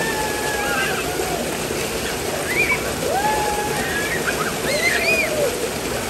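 Small waterfall pouring steadily into a rock pool, with water splashing around people in the spray. High-pitched children's voices call out over it about four times, excited and playful.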